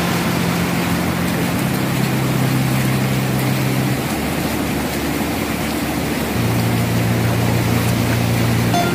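Rushing whitewater of a river rapid, a steady dense noise with no break. Low held background notes sit underneath and shift pitch a few times.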